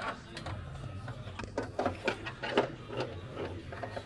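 Hands working a paper template against the aluminium engine cowling: irregular light taps, clicks and rustles over a low steady hum.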